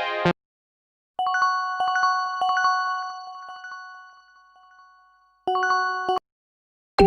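Huawei P30 lite ringtone playback. One tone is cut off just after the start. Then a chime ringtone of bell-like notes rings and fades over a few seconds, restarts briefly and stops abruptly, and the next ringtone begins at the very end.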